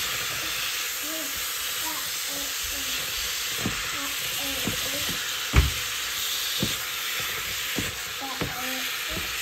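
Beef strips frying in a pan with a steady sizzle. A few knocks, most likely a utensil stirring against the pan, come through; the loudest is about five and a half seconds in.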